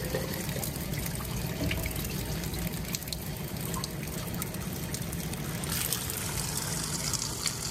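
Fresh water running constantly from the brass spouts of a stone public drinking fountain, splashing onto the stone below and trickling into a plastic bottle held under one spout. The splashing turns brighter near the end.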